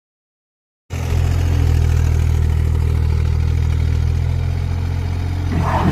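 Heavy-machinery diesel engine running steadily, starting about a second in, with a brief higher-pitched noise near the end.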